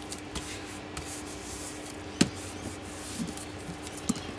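Hands rubbing and smoothing a sheet of glued, painted paper flat, a dry papery rubbing. There is one sharp click about two seconds in, with a few fainter taps.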